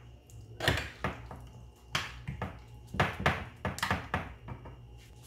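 Raw chicken being mixed by hand in a yogurt and spice marinade in a glass baking dish: a run of about nine light, irregular taps and knocks against the glass.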